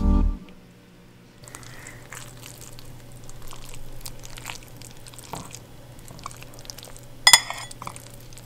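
Close-up food sounds of a fork stirring and lifting saucy spaghetti squash and broccoli in a bowl: soft wet squelches and small clicks, with one sharp clink about seven seconds in. A laundry machine hums steadily underneath, and a guitar strum cuts off at the very start.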